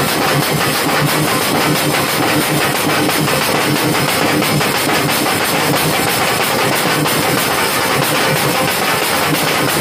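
Loud, fast, continuous drumming by temple festival drums, a rapid unbroken stream of beats.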